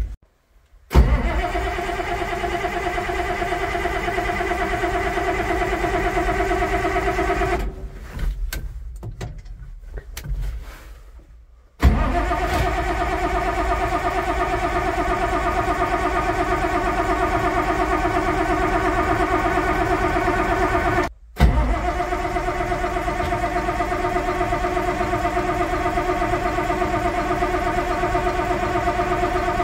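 Massey Ferguson 1135 tractor's six-cylinder diesel engine being started. A first steady run of about six seconds stops, followed by a few seconds of quieter irregular clatter. From about twelve seconds in the engine runs steadily again, dropping out for a moment about two-thirds of the way through.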